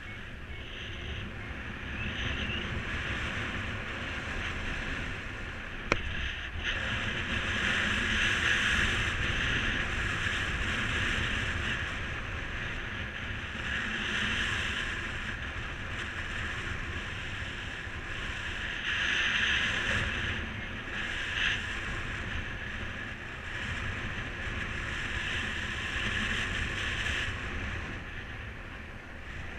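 Airflow rushing over the microphone during paraglider flight: a steady low rumble with a hiss that swells and eases every few seconds. There is one sharp click about six seconds in.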